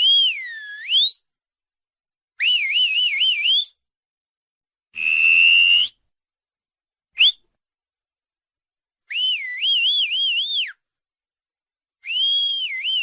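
Whistling: a string of separate high whistles with silent gaps between them. The first swoops down and back up, and two later ones warble quickly up and down. A nearly level, slightly rising tone comes about five seconds in, then a brief upward chirp, then two more warbling whistles.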